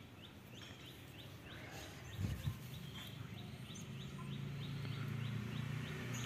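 A bird chirping one short note over and over, evenly, nearly three times a second, against faint background noise. A soft low thump comes about two seconds in, and a low hum grows in during the second half.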